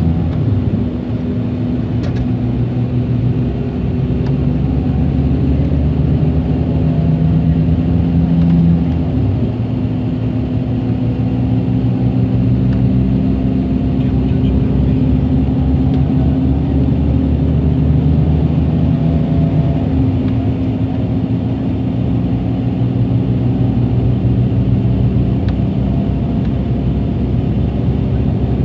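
Scania K380 coach's rear-mounted DC12 06 inline-six diesel engine (380 hp) running under way, heard from inside the cabin as a steady drone. The engine note drops and the level dips briefly about nine seconds in, then the note shifts again around twenty seconds in.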